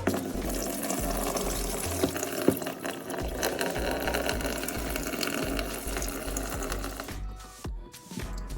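Leftover water in a toilet tank gushing out through the fill-valve hole in the tank bottom as the old fill valve is removed, running steadily and stopping about seven seconds in.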